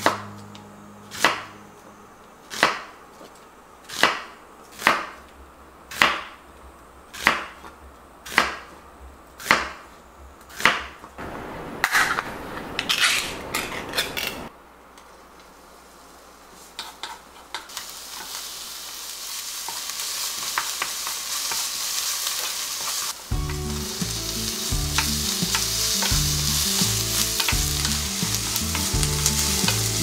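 A chef's knife chopping an onion on a wooden cutting board, about one cut a second, followed by a brief scraping. After a short lull, sliced onion sizzles as it fries in a pan and is stirred with a wooden spatula.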